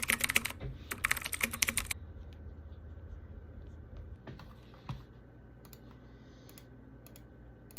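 Typing on a computer keyboard: a quick run of keystrokes for about the first two seconds, then a few scattered single key clicks.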